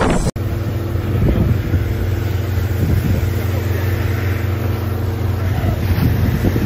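A steady engine drone mixed with the rushing hiss of fire hoses spraying water onto a burning fishing boat. The sound cuts out briefly about a third of a second in.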